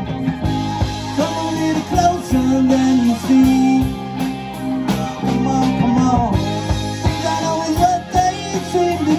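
Live rock band playing, with electric guitars to the fore over drums and keyboard.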